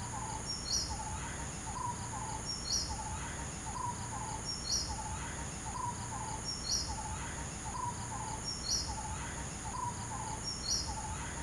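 A bird repeats the same short phrase about every two seconds: a high chirp, a rising whistle and a quick run of lower notes. Under it, insects keep up a steady high drone.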